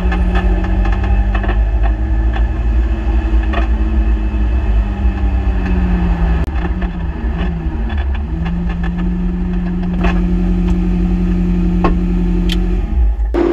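Ferrari 458 Challenge's V8 running at low revs, heard from inside the cabin as the car idles and creeps along the pit lane. The engine note dips and picks back up about halfway through, with occasional clicks over the steady rumble.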